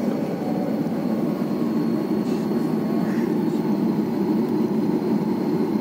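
Steady rumble of jet engines and air noise heard inside an airliner cabin while it taxis before takeoff, with a faint high whine over it.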